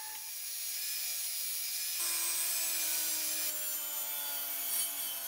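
Power woodworking tools working oak: a belt sander first, then, after a sudden change about two seconds in, a power saw running and cutting, its motor hum sinking slowly in pitch.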